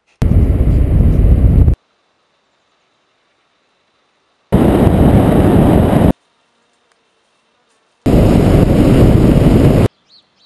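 Wind rush and road rumble from a car driving, picked up by a camera mounted on the car's roof. It comes in three bursts of about one and a half seconds, each starting and stopping abruptly, with near silence between.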